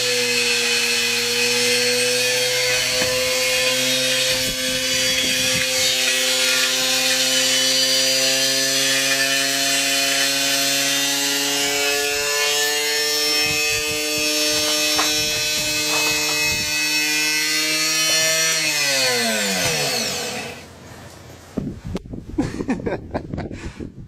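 Washing machine running flat out as it self-destructs: a steady motor whine with scattered clattering knocks. About nineteen seconds in the whine falls in pitch as the machine winds down, and it stops about a second later. Gusts of wind buffet the microphone near the end.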